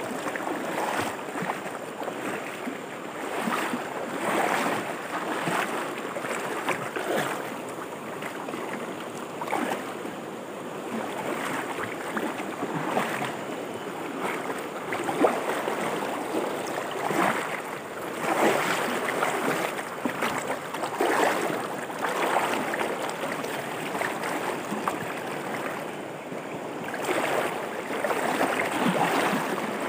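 Fast-flowing rocky river rushing and splashing over stones, a steady wash of water that swells and eases.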